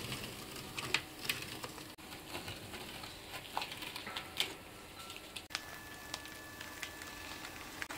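Masking tape crusted with sprayed cork, and plastic protective sheeting, being peeled off the van's walls and window frames: irregular crackling and tearing clicks. The sound breaks off sharply twice, about two and five and a half seconds in, and a faint steady tone runs under the last part.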